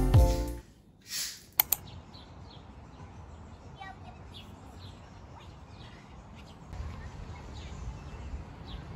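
Quiet outdoor ambience: faint, scattered bird chirps over a low steady background noise, with a low wind-like rumble rising near the end. Before it, the tail of background music fades out, then a brief whoosh and a click.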